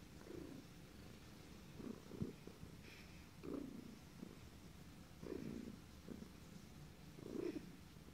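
Domestic cat purring in a steady low rumble, broken about every one and a half to two seconds by a short hiccup, six in all, one with a sharp click.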